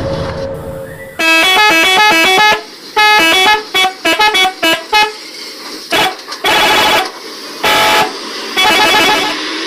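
Telolet bus horn: a multi-tone musical horn sounding a stepping tune in several loud bursts, a long phrase about a second in, then a run of quick short notes, then a few longer blasts before it cuts off suddenly. A steady engine-like hum fades out during the first second.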